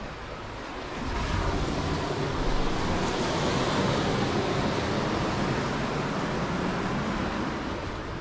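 Surf on a sandy beach: a steady rushing wash of waves that swells about a second in and holds.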